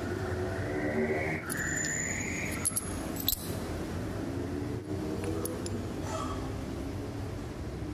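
Light metallic clinks and scrapes as steel parts are set down and shifted on a lathe's compound slide, with a few sharp clicks about three seconds in, over a steady workshop hum.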